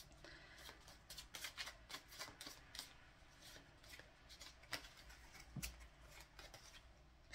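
A deck of playing cards being shuffled and handled by hand: faint, irregular clicks and riffles of the cards.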